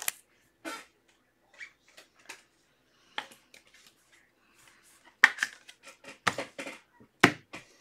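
Scattered soft clicks, taps and rustles of hands working at a desk, trading cards and packaging being handled, with a quicker run of sharper clicks about five seconds in.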